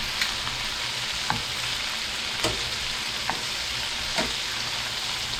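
Oil and butter sizzling steadily in a pot with an orange slice frying in it, with a few sharp clicks about a second apart.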